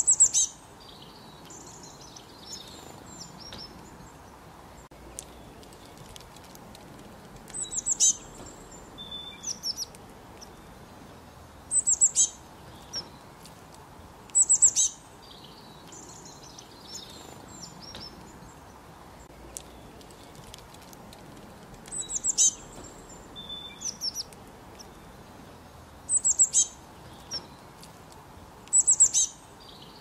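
A small songbird giving short bursts of high, falling chirps a few seconds apart, with softer chirps in between.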